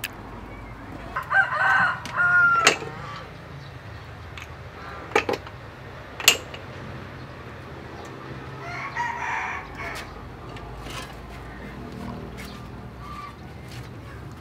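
A rooster crowing about a second in, with more chicken calls near nine seconds, and a few sharp clicks and knocks.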